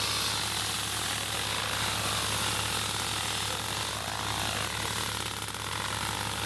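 A motor running steadily with a constant low hum.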